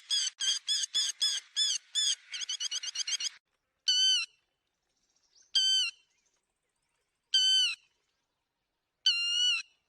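Lapwing calling: a fast run of sharp, repeated notes, about five a second, for the first three seconds or so, then four single longer calls evenly spaced.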